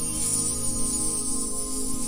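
Background music with sustained, steady tones.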